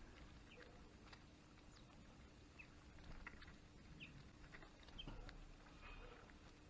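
Faint, scattered short bird call notes, high chirps and ticks coming irregularly, over a low steady hum.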